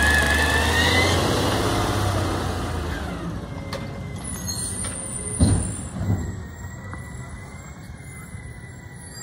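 Automated side-loader garbage truck's diesel engine pulling away, with a rising whine at the start, then fading as the truck drives off. Two sharp thuds about five and a half and six seconds in.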